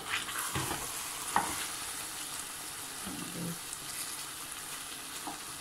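Wooden spoon stirring cubed turnips in a thick masala in a stainless steel pot, knocking and scraping against the pot over a steady hiss from the cooking food. The sharpest knock comes about a second and a half in.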